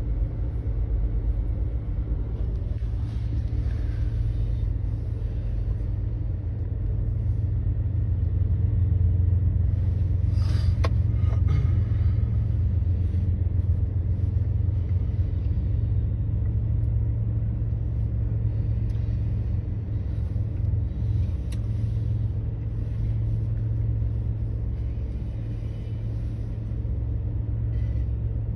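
Freight train boxcars rolling past, a steady low rumble with a brief metallic squeal about eleven seconds in.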